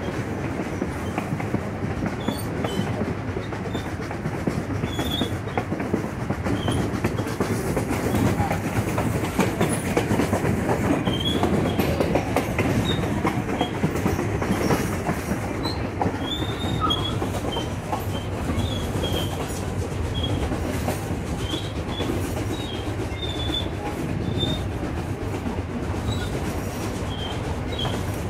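Narrow-gauge passenger cars of the Durango & Silverton steam train rolling along the track, heard from an open-air car: a steady rumble with rapid clicking from the wheels and rails, and brief high wheel squeals scattered throughout.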